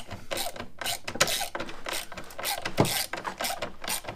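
Socket ratchet clicking in a string of short strokes, several a second, as a bolt is tightened down.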